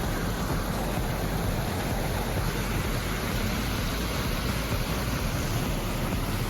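Steady rushing of falling water from a waterfall, an even noise with a low rumble underneath.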